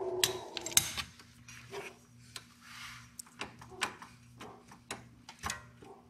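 Irregular metallic clicks and taps of a wrench working a nut onto the brake pedal's pivot bolt.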